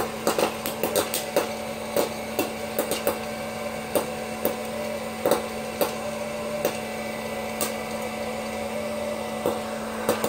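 Popcorn kernels popping in a running popcorn maker over its steady motor hum: the sharp pops come thick and fast for the first few seconds, then thin out to scattered single pops as the batch nears its end.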